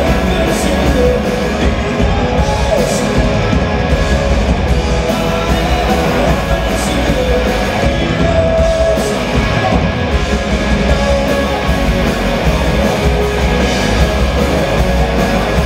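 A live hard rock band playing loud and steady: distorted electric guitars, bass, drums with crashing cymbals, and keyboards through a venue PA.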